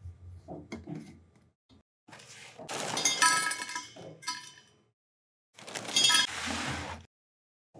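Dry cereal poured from a box into a metal water bottle, the pieces rattling and ringing against the inside, in two pours with the second shorter. Before that come a few small clicks as the bottle's lid is taken off.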